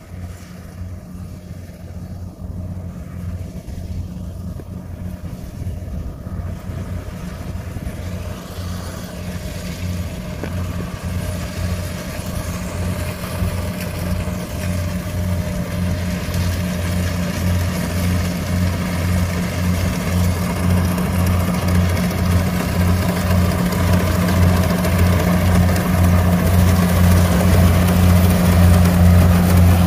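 Kubota crawler combine harvester running steadily while cutting and threshing rice, its diesel engine hum overlaid by the whir and rattle of the cutter and threshing drum. It grows steadily louder as the machine comes closer.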